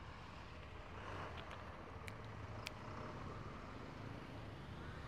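Faint low rumble of road traffic, a vehicle engine slowly growing louder, with a few small sharp clicks between about one and a half and three seconds in.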